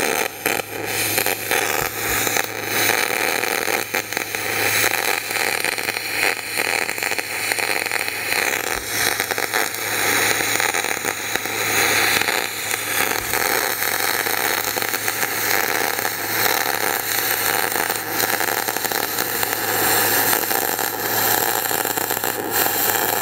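MIG welding arc from a push-pull gun laying a bead on aluminum with 0.047-inch 4043 aluminum wire. The arc gives a steady crackling hiss over a low hum that does not let up.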